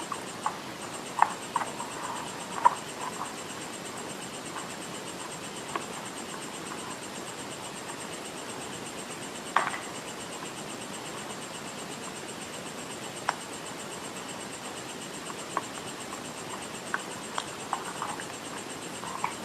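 Dry clay being bitten and chewed close to the microphone: scattered crisp crunches over a steady hiss. They come in a cluster at the start, then sparsely, with a louder crunch about ten seconds in.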